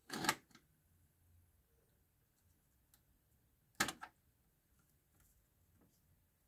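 Mechanical clicks from a Pyle PT-659DU cassette deck: a clatter at the start as the cassette door is pushed shut, then about four seconds later a quick double click as the stop/eject key is pressed and the door pops open.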